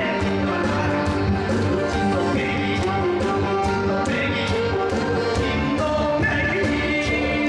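A man singing a Korean trot song into a microphone over instrumental accompaniment with a steady beat.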